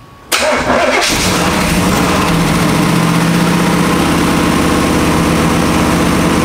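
A 1991 Chevrolet Camaro's engine is started: a brief crank of under a second, then it catches and runs at a steady idle.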